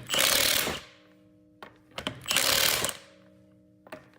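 Milwaukee M18 Fuel 1/2-inch cordless impact wrench hammering at full power in reverse, in two short bursts of under a second each, breaking lug nuts loose. A few light clicks come just before each burst.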